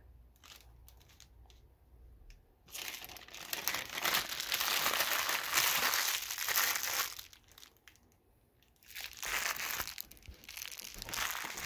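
Frozen pizza's plastic wrapper crinkling as it is crumpled up by hand. There are a few faint clicks at first, a long spell of crackling from about three seconds in, a short lull, then a second shorter spell near the end.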